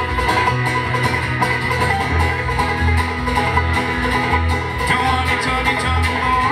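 Live acoustic bluegrass-style instrumental: a five-string banjo picking over a strummed acoustic guitar, with a steady pulse of low bass notes underneath.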